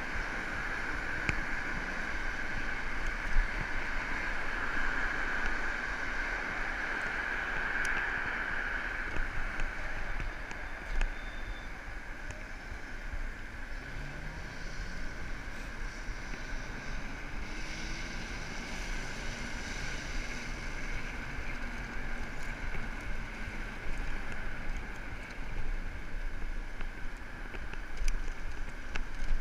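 Moped riding through city traffic: wind rushing over the microphone over the steady running hum of the bike and surrounding traffic, with a higher hum that fades after about ten seconds.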